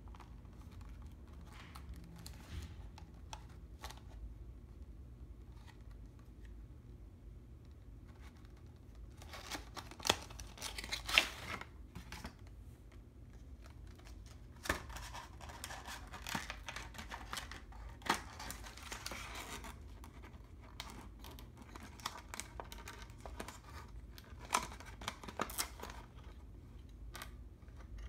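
A small cardboard box and a clear plastic blister tray being handled and opened, giving scattered clicks and crinkly rustling of thin plastic and card. It is quiet for the first several seconds, loudest around ten to eleven seconds in, rustles again in the middle, and has a few sharp clicks near the end.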